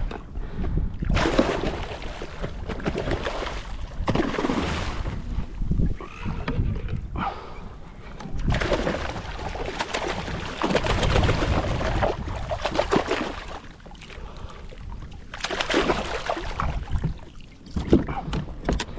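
Water splashing beside a kayak as a hooked kawakawa is fought near the surface, with wind rushing on the microphone. The sound comes in surges a few seconds long.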